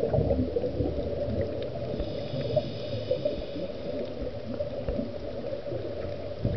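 Muffled underwater ambience picked up by a submerged camera: a steady low rumble with faint scattered crackles.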